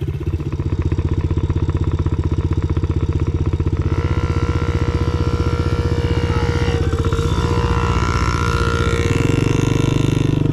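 Small Yamaha dirt-bike engines (a TT-R110 and a PW50) running. One idles steadily with a low, even pulse. From about four seconds in, a second, higher engine note rises and falls as a bike revs and rides past. The low engine grows louder near the end.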